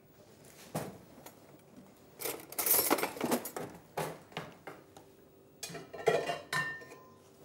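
Dishes and kitchen utensils clinking and clattering on a counter as bowls and plates are moved and set down, in several bursts, with a short ring from a struck dish near the end.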